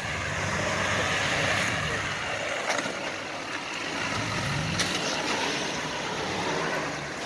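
Ford Super Duty pickup's engine running as it drives through a shallow rocky river crossing, its pitch rising briefly about halfway through, over a rush of water and tyres, with two sharp knocks from the rocks.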